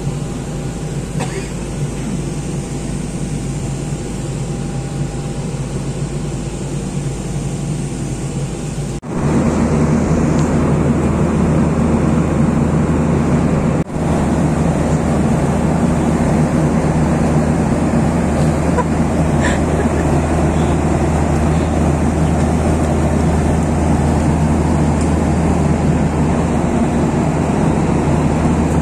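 Airliner cabin noise: a moderate steady hiss with a faint steady tone for the first nine seconds, then a sudden cut to a louder, deeper in-flight drone of engines and rushing air that holds steady.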